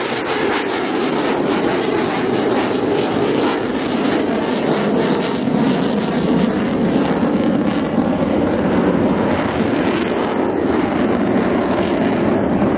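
Military jet engines running loud and steady as the jets fly low overhead, a continuous rushing roar with no break.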